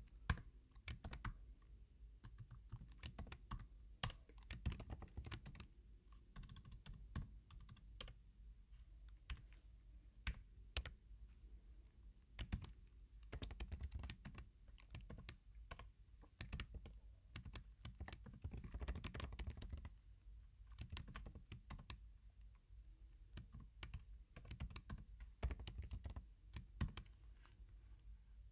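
Computer keyboard being typed on: runs of soft, quick keystroke clicks with short pauses between them.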